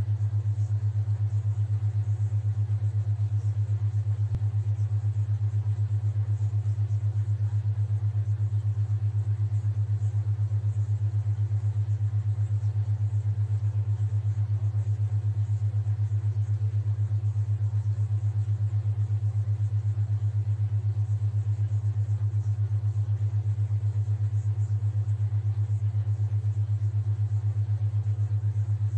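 Theta-wave binaural beat: a steady low tone near 100 Hz that pulses quickly and evenly, several times a second.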